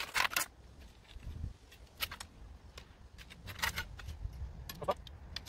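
Metal windbreak poles clinking and rattling against each other as they are sorted and handled, in a string of sharp, irregular metallic clicks, a few ringing briefly.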